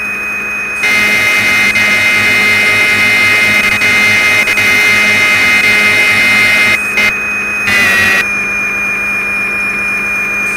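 Synthesized machining sound of a Fanuc 0-T CNC lathe simulator: a steady high whine of the spindle, which turns louder and fuller about a second in while the tool feeds along a roughing pass. It breaks off briefly, changes again as the tool retracts, and settles back to the plain spindle whine near eight seconds in.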